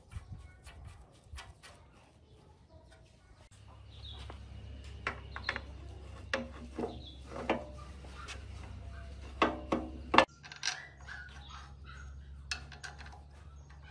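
Metal clicks and knocks from an antique lathe's carriage handwheels, levers and slides being turned and moved by hand, with a few sharper knocks just before the middle. Under them is a steady low hum.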